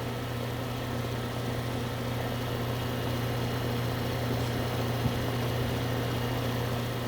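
Goodman central air conditioner's outdoor unit running steadily: a low compressor hum under the condenser fan's even rush, with one brief click about five seconds in. The unit is low on R22 refrigerant and is being topped off while it runs.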